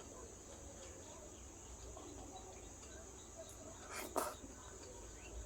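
Faint eating sounds, chewing and mouth smacks, with one sharp click about four seconds in, over a steady high-pitched background hiss.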